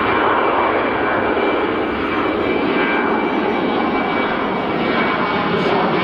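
Jet airliner's engines running loud and steady as it passes close by, a faint high whine over the roar.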